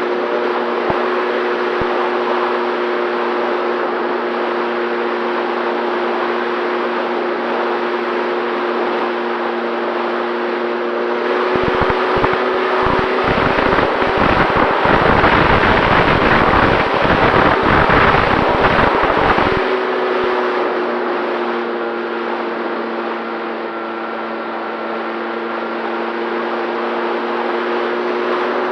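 Electric pusher motor and propeller of an FX-79 flying-wing RC plane running at a steady, even pitch in flight. From about 11 to 20 seconds in, a loud rumbling wind noise on the microphone swamps it, then the steady motor tone returns.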